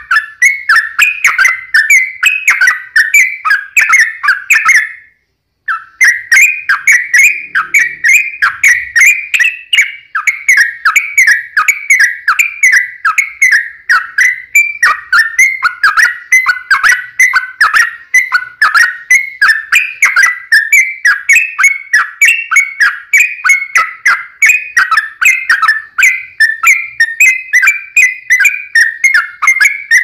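Yellow-vented bulbul song: a long, fast run of short whistled chirps, several a second, carrying on with only a brief half-second break about five seconds in.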